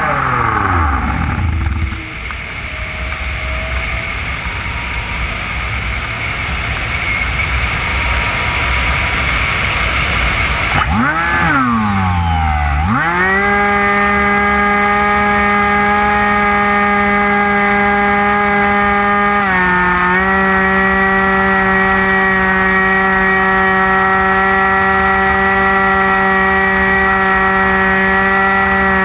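The HobbyKing Bixler's electric brushless motor and pusher propeller, heard from the onboard camera. The motor whine falls away at the start as the throttle is cut, leaving wind rush while the model glides. About eleven seconds in the motor spins back up with a wavering whine, then runs at a steady high whine, dipping briefly in speed near the twenty-second mark.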